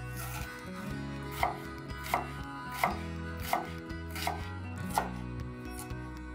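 Kitchen knife chopping on a cutting board: six sharp, evenly spaced chops about two-thirds of a second apart.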